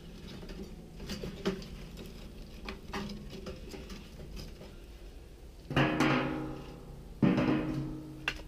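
Light clicks of kindling sticks being handled, then two ringing metallic clunks about a second and a half apart as pieces of wood are set down on the metal barrel of a homemade rocket stove heater, each ring dying away within a second.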